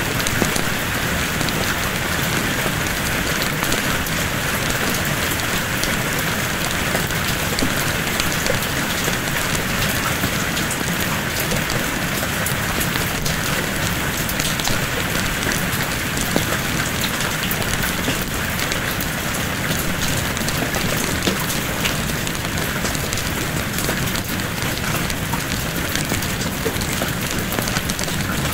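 Steady rain falling, with scattered small crackles of a wood fire.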